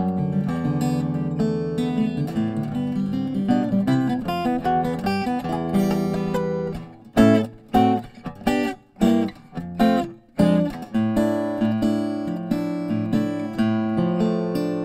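Acoustic guitar music played on an archtop guitar, a steady run of chords and single notes. About seven seconds in, the flow breaks into a handful of short, separate chords with brief gaps between them, then the playing runs on.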